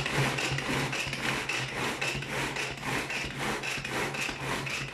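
Manual pull-cord food chopper (Tupperware Extra Chef) worked with quick repeated pulls, its spinning blades grinding frozen raspberries into sorbet: a rasping churn with each stroke over a steady low hum.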